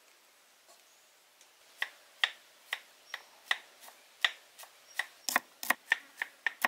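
Kitchen knife slicing shallots on a round wooden chopping board: a dozen or so sharp knocks of the blade on the wood, starting about two seconds in and coming faster near the end.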